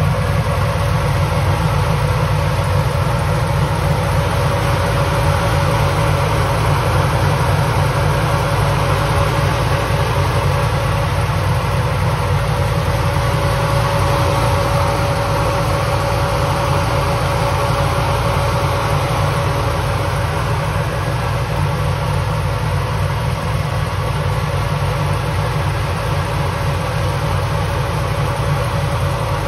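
Supercharged LS-swap V8 in a 1985 Camaro IROC-Z idling steadily, with a constant high tone over the engine's rumble.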